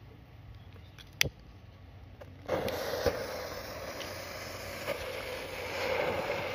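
A sharp click about a second in, then a coloured-smoke firecracker in a hole in the ground catches and burns with a loud steady hiss while spraying sparks, with a single pop shortly after it lights.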